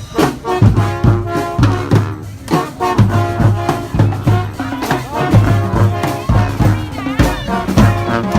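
Street brass band playing: brass horns carry the melody over a steady, driving drum beat with a strong low bass pulse.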